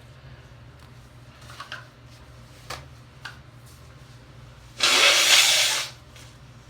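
A woman's hay fever sneeze: a few short catching breaths, then one loud, wet burst lasting about a second near the end.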